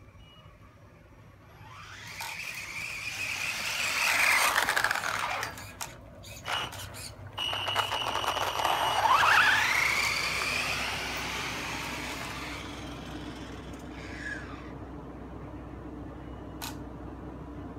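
Brushless electric motor of a Traxxas Slash 4x4 RC truck (Castle Sidewinder 3 system with a four-pole motor) whining as it accelerates at full throttle, with tyre and drivetrain noise. The pitch rises twice, about 2 seconds in and again about 8 seconds in, with a few sharp clicks in between. It fades away after about 12 seconds.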